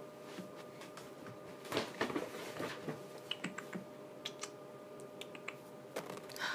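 Scattered light clicks, scratches and rustles as a green-cheeked conure shifts its feet and beak on a hand over a cloth-covered surface, busiest about two seconds in.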